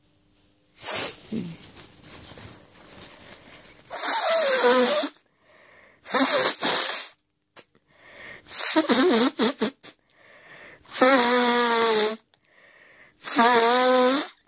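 A person blowing their nose hard in a series of honking blows: a small one about a second in, then five loud blows about two seconds apart, the later ones with a steady honking tone.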